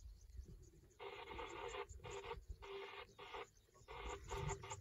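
Lions at a kill growling in about five short bursts of half a second to a second each, over a low rumble of wind.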